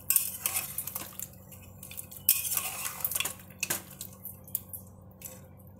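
Metal ladle scraping and clinking against the inside of an aluminium pressure cooker as pieces of cooked mutton in gravy are turned over, in irregular strokes that are busiest in the first second and again from about two to three and a half seconds in.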